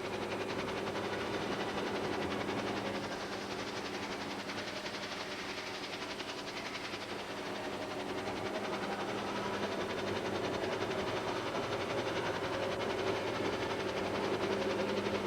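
A steady mechanical running noise with a low hum and a fast, even rattle.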